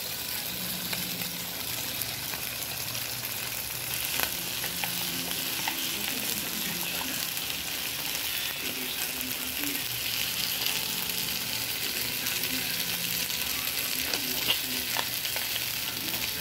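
Spaghetti sauce sizzling in a hot frying pan as a steady hiss, stirred with a metal spatula that clicks and scrapes against the pan now and then.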